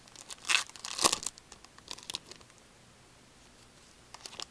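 Hockey trading cards and their pack wrapper being handled: two crinkling rustles in the first second or so, a few fainter ones after, then a few light ticks near the end.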